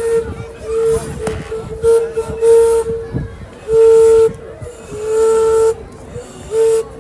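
Locomotive whistle on a Thomas the Tank Engine train, sounded in a run of blasts, some short and some longer, all on one steady note.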